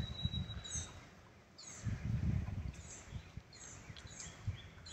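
Wild birds chirping, short high chirps that fall in pitch, coming every second or so, over an uneven low rumble.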